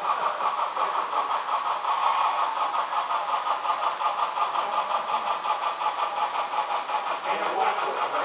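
Model train running on a layout's track, with a steady rhythmic pulse about five times a second.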